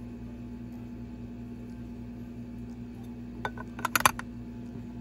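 Hard plastic makeup packaging handled, giving a short cluster of sharp clicks and clatters about three and a half to four seconds in.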